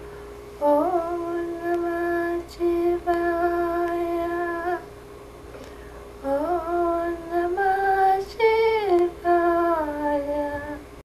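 A woman chanting in long, held, sung notes: two phrases with short pitch slides between the notes, over a faint steady tone.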